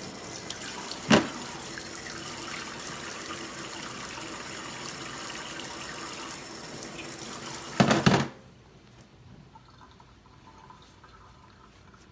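DeLonghi EC702 espresso machine running with a steady hiss of flowing water. There is a sharp knock about a second in, and a louder clatter near the end, after which the running stops suddenly and only faint drips remain.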